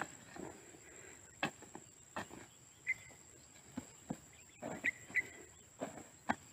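Hoe blade chopping and scraping through loose garden soil, in irregular strikes about eight times. A few short high chirps come in between, over a steady thin high whine like an insect.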